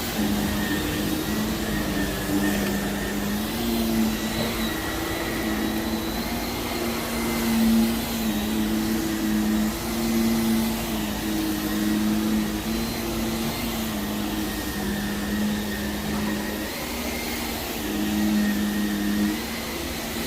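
Vacuum cleaner running on heavily soiled carpet, a steady motor hum with a high whine over an airy rush. The hum breaks off and comes back every second or two.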